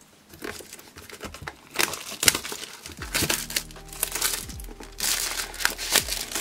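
Clear plastic shrink-wrap film crinkling as it is handled, along with the rustle and taps of a cardboard marker box and its sleeve being slid apart and moved.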